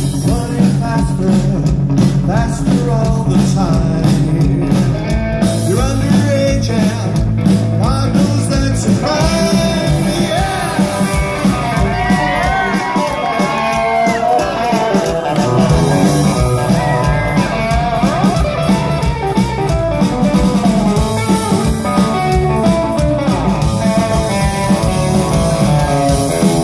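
A rockabilly band playing live through a stage PA: electric guitar, upright bass and drums, with a sung vocal.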